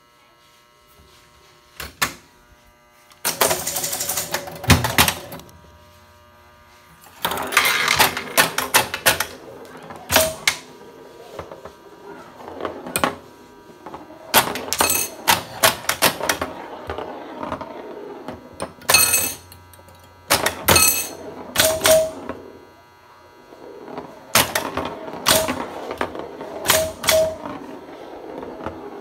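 Electromechanical 1977 Williams Argosy pinball machine in play: flipper and bumper solenoids clacking and the scoring mechanism clicking in bursts every few seconds, with brief ringing tones among them and quieter gaps between.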